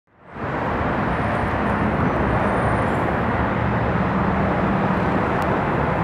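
Steady road traffic noise of cars and buses running along a busy city road, with a low engine hum under it. It fades in at the very start.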